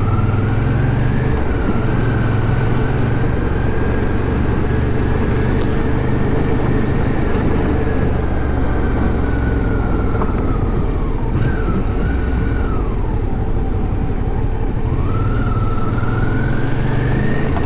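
Suzuki V-Strom 650's V-twin engine running steadily as the motorcycle is ridden at low speed, with a high whine that falls away about eleven seconds in and climbs back about fifteen seconds in.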